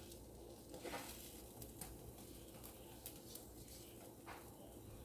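Sourdough grilled cheese frying in butter in a nonstick pan: a faint, steady sizzle with scattered small crackles and a few light clicks.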